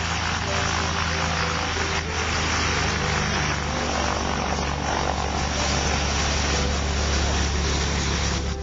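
Aircraft engine running steadily, a constant low drone that holds the same pitch throughout.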